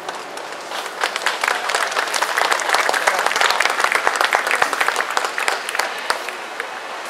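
Audience applauding: clapping starts about a second in, swells to its loudest in the middle and dies away near the end.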